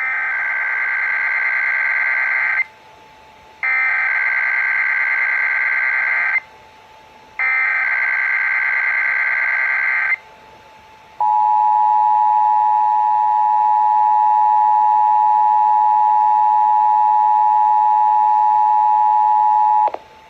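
Emergency Alert System tones for a Required Monthly Test: three bursts of screechy SAME header data, each a little under three seconds long with about a second's gap between them. Then the steady two-tone EAS attention signal, held for about nine seconds before it cuts off.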